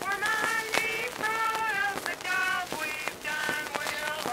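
Two women singing a song about the Navy without words caught by the recogniser, in sustained sung phrases, with frequent sharp clicks and crackle running through the recording.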